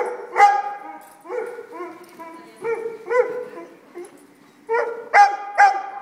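A dog barking repeatedly: about eight short, high-pitched barks in uneven groups.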